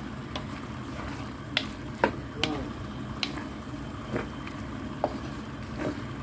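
Wooden spatula stirring and tossing pancit bato noodles in a wok, with irregular scrapes and knocks against the pan, the loudest about two seconds in. Underneath, the cooking noodles sizzle steadily.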